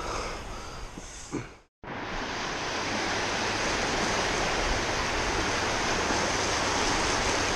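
Shallow surf washing up a sandy beach, a steady hiss of small breaking waves. The sound drops out for an instant just under two seconds in, and after that the surf noise is louder and even.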